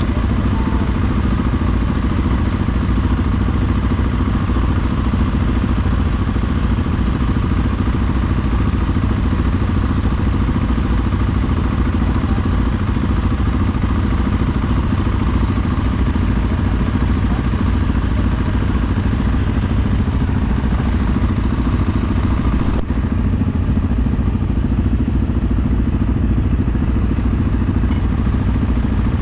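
Off-road vehicle's engine running steadily while under way, a dense low drone with road noise. The high hiss above it drops off near the end.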